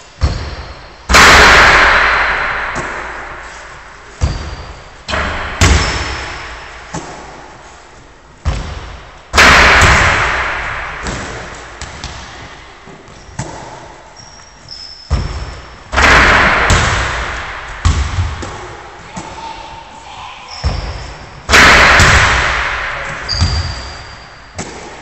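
Basketball banging on the hoop and wooden floor during a shooting drill in a hard-walled gym: four loud bangs, each echoing away over a few seconds, with lighter bounces and catches between them.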